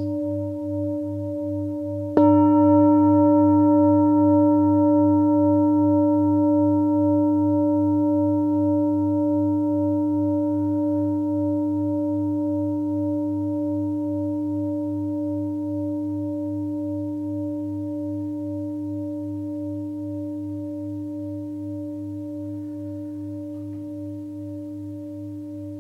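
A meditation singing bowl, already sounding, is struck again about two seconds in; its deep tone with several higher overtones rings on with a slight wavering beat and slowly fades away.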